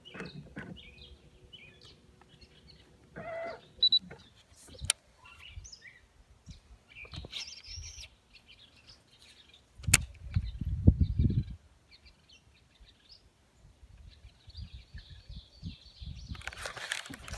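Small birds chirping on and off. About ten seconds in, a sharp click is followed by a second and a half of loud, low knocking and rumbling, and near the end a steady rushing noise starts.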